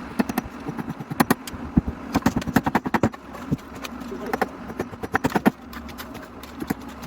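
Irregular clattering: quick runs of sharp clicks and knocks, with short pauses between the runs.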